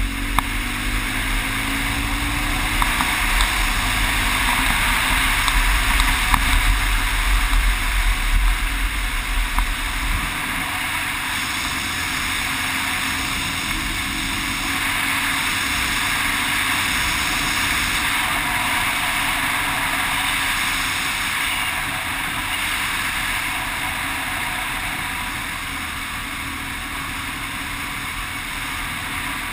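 BMW GS adventure motorcycle ridden at road speed, heard from an onboard action camera: a steady engine drone under heavy wind rush. The engine pitch rises briefly at the start, and low wind buffeting is strongest over the first ten seconds or so.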